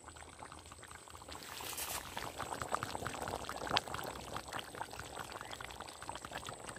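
Chicken curry boiling in a pot over a wood fire: steady bubbling with many small pops and crackles, growing busier after the first second or so, with one sharper pop a little before four seconds in.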